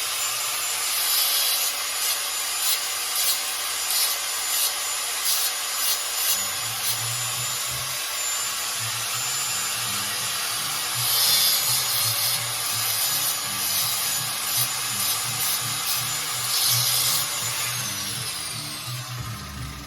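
Angle grinder cutting metal: a steady high whine under gritty grinding noise that surges in quick pulses. Near the end the whine falls away as the disc spins down.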